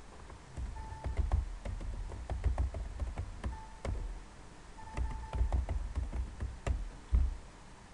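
Typing on a computer keyboard: irregular keystrokes in a few quick runs, each key with a dull thud, and short pauses between the runs.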